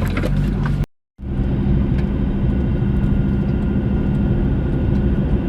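Four-wheel-drive vehicle's engine running steadily as it climbs a rough track, with a steady drone; the sound cuts out completely for a moment about a second in.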